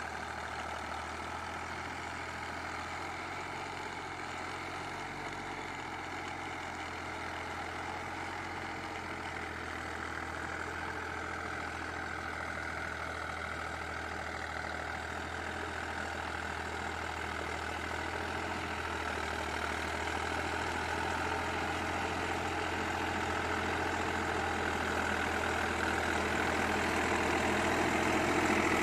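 Deutz-Fahr Agromaxx 50 hp tractor's diesel engine running steadily while pulling a rotavator through the field. It grows gradually louder as the tractor comes closer.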